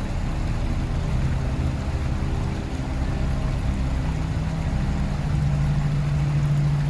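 Low, droning ambient background music over a steady rumble, with a deep held note that swells about two-thirds of the way in.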